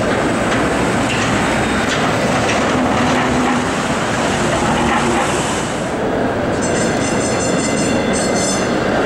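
Street traffic and vintage PCC streetcars running along the rails. Near the end a high, pulsing squeal lasts about two seconds.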